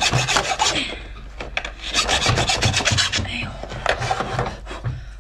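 A hacksaw sawing into the hard shell of a large lobster claw, in quick rasping back-and-forth strokes. There are two bursts of about a second each, with lighter scraping between them and after.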